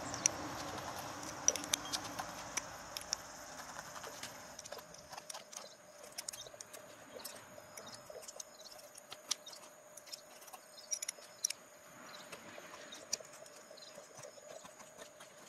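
A small stamped-steel furniture-assembly wrench scraped repeatedly along a ferrocerium fire-starter rod, making short irregular metallic scrapes and clicks. The strikes throw a few sparks but fail to light the tissue.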